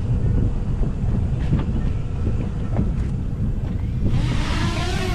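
A steady low rumble with a few small knocks as the drone is handled on the deck. About four seconds in, a small camera drone's propellers spin up for takeoff: a loud hissing whine whose pitch wavers.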